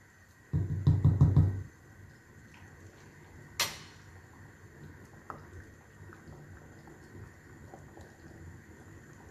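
Cookware handled on the stove: a short stretch of scraping and rattling about half a second in, a single sharp clink a few seconds later, then faint scattered ticks.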